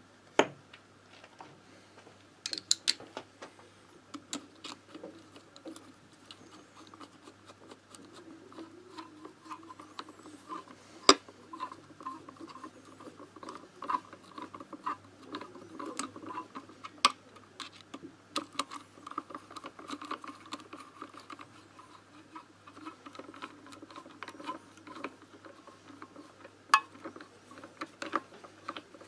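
Small metal engine parts and hand tools handled during moped engine reassembly: scattered light clicks, taps and scraping, with a sharper metallic knock about eleven seconds in.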